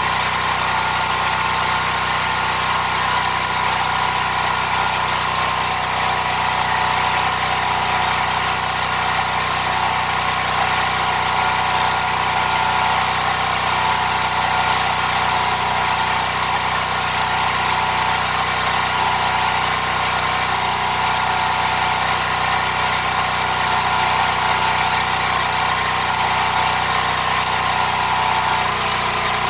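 A machine or engine running with a steady, unchanging hum and an even hiss.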